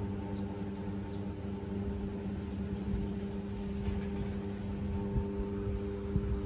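A steady mechanical hum with a few constant tones over a low, uneven rumble.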